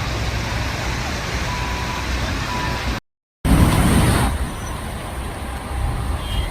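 Road traffic noise: a steady hiss over a low rumble of vehicles. It cuts out completely for a moment about three seconds in, then returns louder for about a second.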